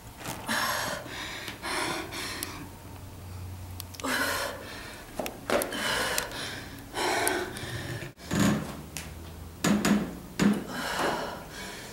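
A woman breathing hard from strenuous exercise: loud, noisy exhalations and gasps about once a second. A few short sharp knocks fall in among them, the loudest in the second half.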